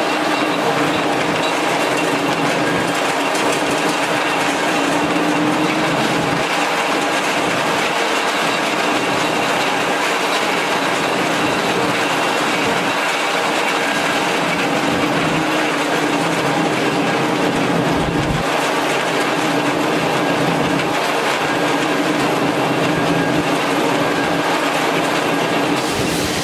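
Marvel 8-MK-1 Series 8 Mark vertical band saw running steadily under power: a constant machine hum from the motor and blade drive, with the blade moving around its wheels.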